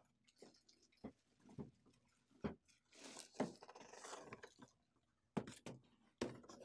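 Faint rustling of the plastic bag around an HP LaserJet Pro MFP M127fn printer, with scattered soft knocks and scrapes as the printer is slid out of its cardboard box and set down on a table. A longer rustle comes in the middle.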